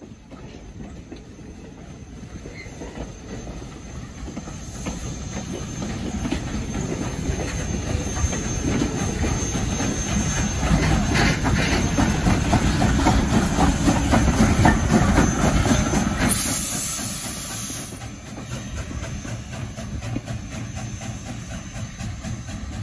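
Southern Railway 401 steam locomotive shoving its passenger coaches slowly past, with wheels clicking over the rail joints over a rumble that grows louder as the locomotive draws near. About two-thirds of the way through, a loud hiss of steam lasts roughly two seconds, then the train runs on more quietly.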